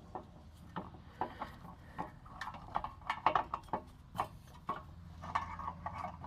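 Irregular light clicks and knocks from tools and parts being handled during a car's rear wheel hub job, a few of them ringing briefly.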